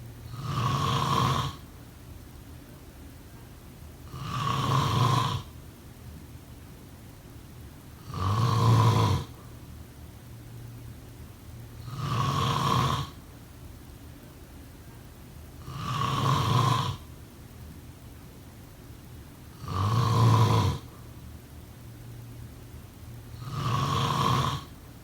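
A sleeper snoring: seven loud snores, one about every four seconds, each lasting just over a second. A faint low hum carries on between the snores.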